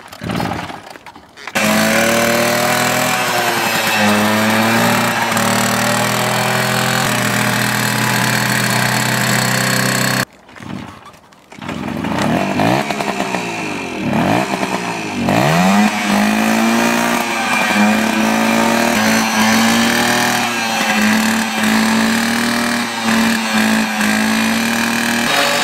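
Old Garelli Basic moped's small two-stroke engine catching and revving hard, held at high revs while stationary and warming up. It drops out abruptly about ten seconds in, comes back a second or so later, is blipped up and down several times, and is then held at a steady high rev.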